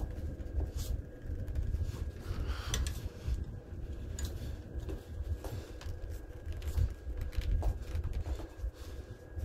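A few faint knocks and clicks as pine boards and a steel pipe clamp are pressed and shifted by hand, over a steady low rumble.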